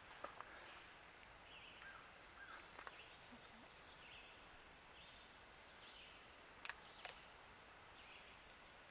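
Near silence: faint outdoor ambience with scattered faint short chirps, and two sharp clicks close together about seven seconds in.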